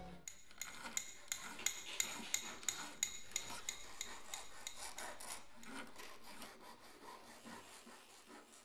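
Rhythmic rasping scrape, about three strokes a second, slowly fading out.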